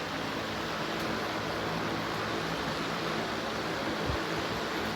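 Air King 9723 box fan running with its swapped-in replacement blade: a steady rush of air over a low motor hum. There is a brief low thump about four seconds in.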